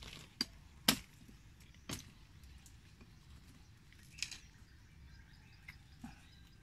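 Oyster shells being knocked and pried loose: three sharp knocks in the first two seconds, the loudest about a second in, then a few fainter clicks.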